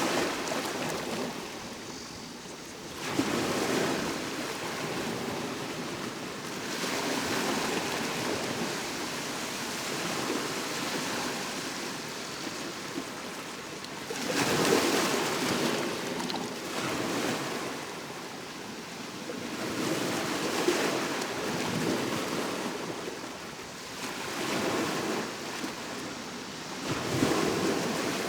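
Sea waves washing onto the shore, a continuous rush of surf that swells and falls back, with a louder surge every few seconds.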